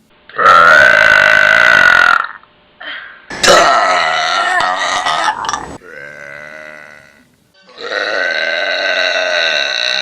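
A person burping four long burps in a row, each held for one to two seconds. The first, second and last are loud, and the third is quieter. The second one wavers in pitch.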